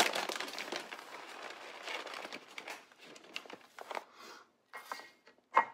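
A bag of oats crinkling and rustling as it is opened and handled to scoop out half a cup, loudest at the start and dying away after a couple of seconds. Scattered small clicks follow, ending with a sharp knock.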